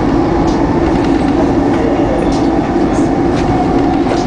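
SEPTA Market–Frankford Line elevated-subway train running along its track, heard from inside the front car: a loud, steady rumble and hum with scattered clicks from the wheels on the rails.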